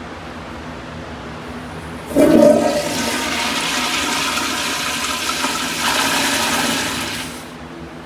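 Kohler Stratton commercial toilet flushing through its flushometer valve. The flush starts with a sudden loud gush about two seconds in, then water rushes through the bowl for about five seconds and drops off to a quieter trickle near the end.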